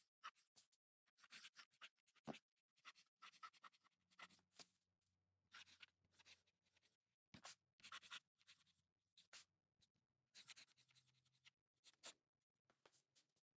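Cross Townsend fountain pen nib scratching faintly across notebook paper in short, irregular writing strokes.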